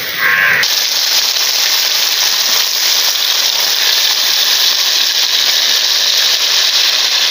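Hot oil sizzling steadily in a frying pan with food shallow-frying in it, a continuous even hiss that starts abruptly under a second in.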